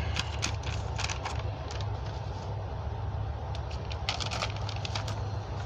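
Scattered clicks, crackles and rustles of paper air-rifle targets being handled and taken down, with a cluster of clicks about four seconds in, over a steady low rumble.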